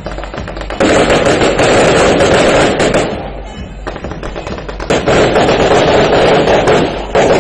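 Fireworks going off in two long, loud runs of rapid crackling pops, each lasting about two seconds: the first starts about a second in, the second about five seconds in.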